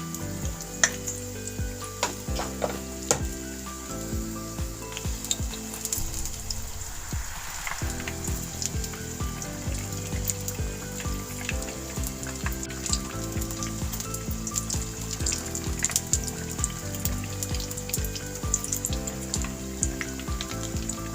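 Battered green chillies (mirchi bajji) deep-frying in hot oil, sizzling with a continuous fine crackle. Background music with a steady beat plays under it.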